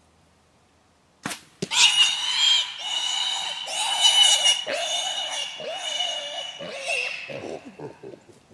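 Two sharp snaps about a third of a second apart, then a feral hog squealing loudly for about five seconds and breaking into shorter squeals near the end. This is the squeal of a hog just hit by an arrow.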